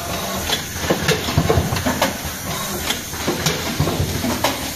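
Automatic card hot stamping machine running: a steady hiss with sharp clicks and knocks from its moving parts, several times a second at irregular intervals.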